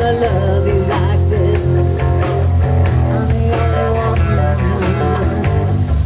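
Live rock band playing, with bass guitar, drums and electric guitar together.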